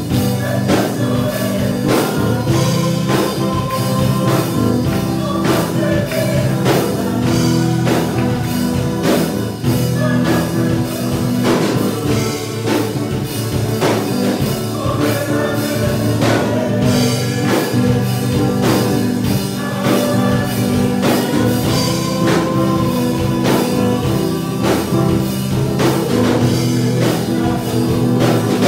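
Christian worship song sung in Spanish by several voices, over instrumental accompaniment with a steady drum beat.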